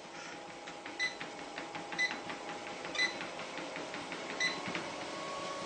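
Home treadmill running, with a steady motor hum and a light pattering. Four short, sharp, high ticks come about once a second.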